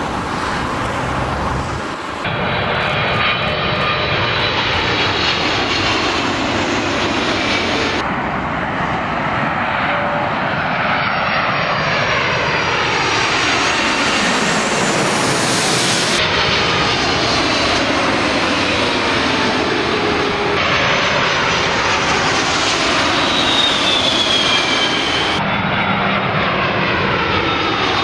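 Boeing jet airliners landing, one after another in short cut-together recordings: a loud, steady jet-engine roar with high whines that slide down in pitch as each aircraft passes low overhead on final approach.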